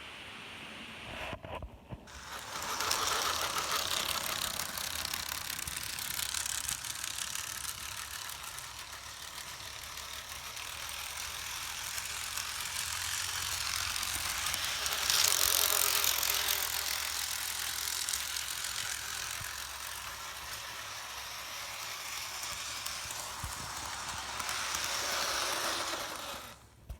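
Model train locomotive running along its track, a steady mechanical clatter of wheels and motor with fine rapid clicking. It starts about two seconds in, is loudest around the middle, and stops suddenly near the end.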